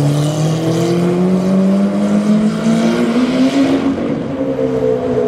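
Novitec-tuned Lamborghini Aventador SV's V12 accelerating hard, its note climbing steadily through a gear, then dipping with an upshift about four seconds in and pulling on.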